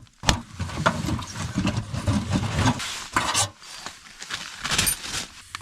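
Ice-covered, wet firewood being split: a sharp strike just after the start, then about three seconds of irregular clattering and scraping of the wood, quieter after that with a few light knocks.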